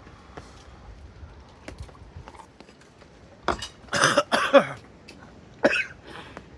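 A man coughing, about four harsh coughs in a cluster about halfway through, set off by the chili heat of the Buldak noodle broth he is drinking.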